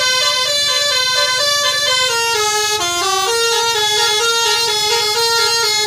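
Musical multi-tone air horn of a tour bus playing a tune: a continuous run of held notes stepping up and down in pitch.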